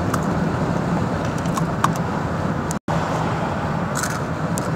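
Steady road and engine noise inside a van being driven, a low even rumble with a few faint clicks. The sound drops out for an instant a little under three seconds in.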